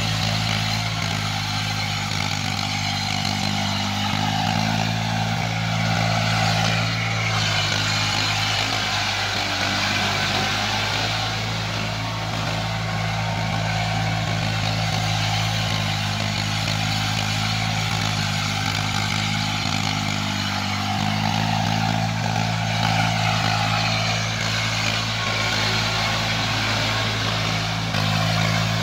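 Eicher 480 tractor's diesel engine running steadily under load as it pulls a rotavator through wet paddy-field mud, its note shifting slightly now and then.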